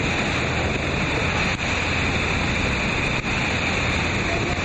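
Loud, steady rush of river rapids and falling water in flood, with wind buffeting the microphone.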